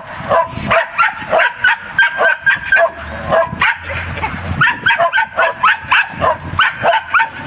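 Shetland sheepdogs barking in a rapid string of short, high-pitched barks, about three or four a second, with a brief lull about halfway through.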